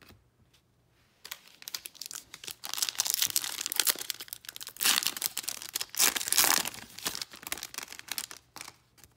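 A trading-card pack's foil wrapper being torn open and crinkled by hand: a long run of crackling rips starting about a second in, loudest around the middle, dying away just before the end.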